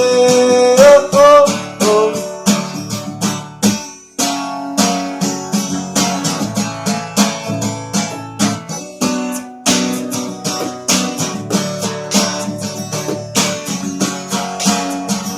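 Acoustic guitar strummed in a steady rhythm, an instrumental passage of a song; a sung note from the voice trails off in the first two seconds.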